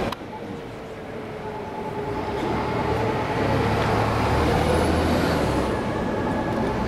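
A motor vehicle's engine running close by, a low sound that grows louder from about two seconds in and stays loud.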